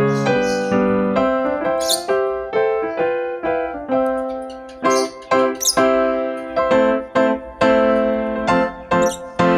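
Background keyboard music: a steady run of piano-like notes and chords, a new note about every half second.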